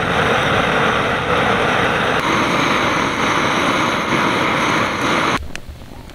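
A loud, steady noise without any tone, which cuts off abruptly about five seconds in.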